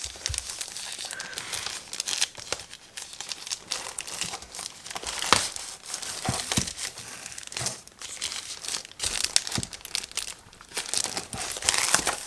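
Packaging crinkling and rustling as a keyboard is unpacked and handled, with a few scattered knocks.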